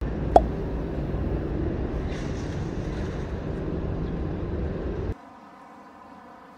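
Outdoor street background noise: a steady low rumble with a light hiss above it, with a short click near the start. About five seconds in it cuts abruptly to a much quieter steady hum.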